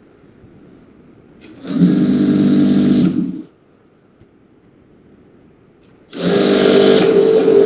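Sewing machine stitching a trouser inseam in two short runs: one of under two seconds, then a pause of about three seconds, then a second run starting about six seconds in.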